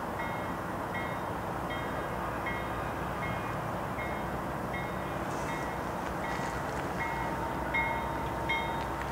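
Railway crossing bell dinging steadily, a little more than once a second, over the low rumble of an approaching Canadian Pacific diesel-hauled train. A few clanks come in the second half, and a steady tone enters near the end.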